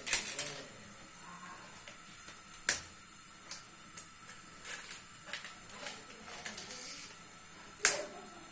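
Outer leaves being snapped off a head of cabbage by hand: three sharp, crisp cracks (just after the start, about three seconds in, and near the end), with lighter crackles and rustling of the leaves between.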